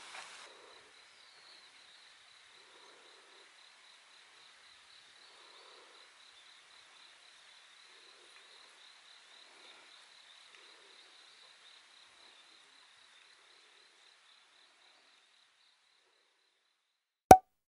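Faint waterside ambience: a steady, pulsing high-pitched insect trill, with soft water plops every second or two from a Megabass i-Wing 135 winged topwater lure crawling across the surface. A single sharp, loud click comes just before the end.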